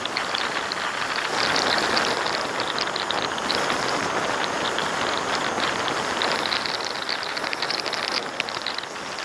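Steady rushing wind and road noise from a vehicle on the move, with dense fine crackling throughout.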